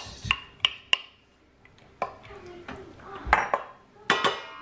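Sautéed mushrooms being scraped out of a pan into a stainless steel pressure-cooker inner pot with a wooden spatula: a run of clinks and knocks of pan and spatula against the metal pot. There are a few light taps at first and the loudest knocks near the end, which ring briefly.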